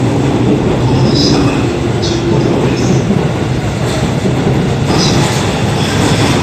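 JR East E231/E233 series electric commuter train pulling out of the station platform, a steady loud rumble of the cars rolling. Brief high squeals come from the wheels several times.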